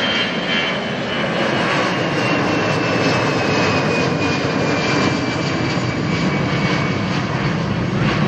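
Airliner engines running loud and steady, with a high whine that slowly falls in pitch.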